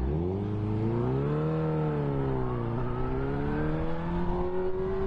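Motorcycle engine accelerating away: the engine pitch rises, falls back between about one and a half and three seconds in, then climbs steadily again.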